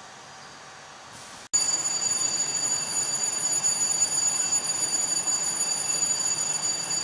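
A stopped freight train's GE Dash 9 locomotive makes a steady noise with several high, steady whines. It starts abruptly about a second and a half in, after a quieter stretch.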